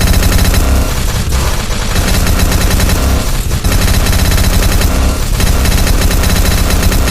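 Synthesized robot sound effect: loud, harsh electronic rapid-fire buzzing in very fast pulses, broken by short gaps about every two seconds.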